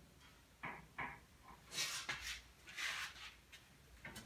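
Faint handling sounds from a hood gas strut being fitted at the hinge bracket: two small clicks about half a second and a second in, then a few soft scuffs.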